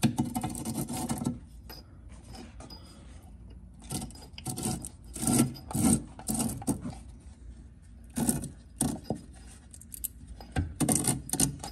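Threaded spring-seat nut of a Skunk2 Pro S II coilover being turned by hand on the threaded shock body, rasping and scraping in short, irregular strokes with pauses between them. This is one full turn of the spring preload adjustment.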